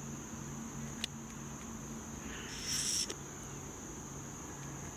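Steady high-pitched chorus of crickets, with a low pulsing hum beneath it. A brief rustle about two and a half seconds in is the loudest moment.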